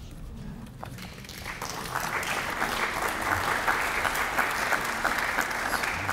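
Audience applauding, building over the first couple of seconds and then holding steady.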